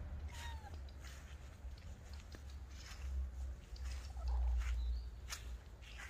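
Domestic cat giving two short meows, one just after the start and another about four seconds in, over a low rumble that is loudest around the second meow.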